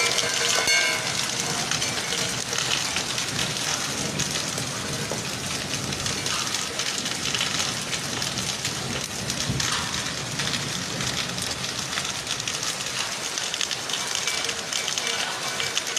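Steady rain falling, a dense pattering on surfaces during a hailstorm.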